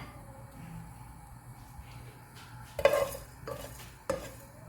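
A spoon or spatula stirring whole spices being dry-roasted in a pan: a low steady background, then three sharp metal clinks against the pan in the second half.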